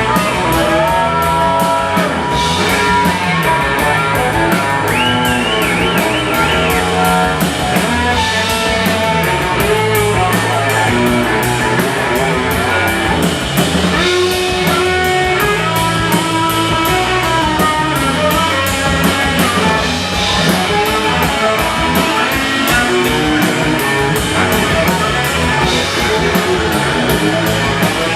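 Rock music with guitar and a drum kit keeping a steady beat, with no singing.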